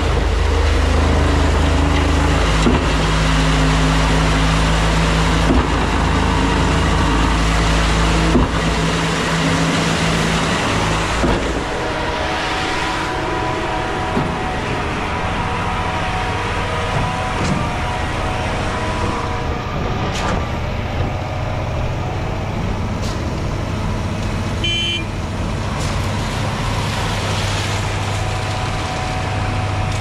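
Diesel engine of a truck-mounted concrete boom pump running hard, with a short knock about every three seconds. About eleven seconds in the engine drops to a lower, steadier drone.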